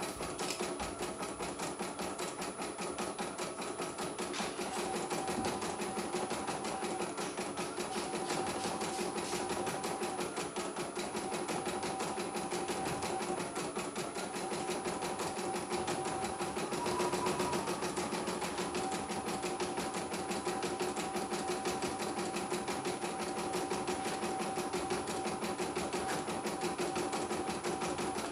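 CNY E900 portable computerized embroidery machine stitching out a design: fast, even needle stitching over a steady motor hum that fades in and out. It is running smoothly, without hitches.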